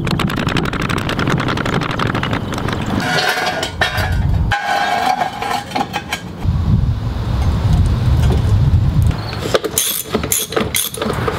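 A floor jack being pumped under a pickup, a fast rattle of clicks, with a brief squeak about three seconds in. Near the end come several sharp metallic clinks as a socket goes onto the wheel's lug nuts.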